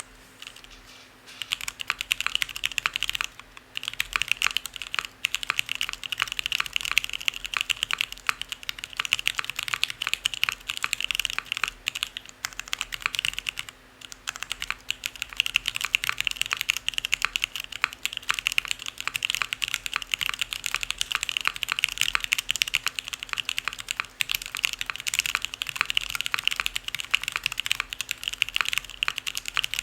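Fast typing on a mechanical keyboard with MX Black linear switches: a dense, clacky stream of keystrokes that starts about a second in, with brief pauses about three and a half and fourteen seconds in.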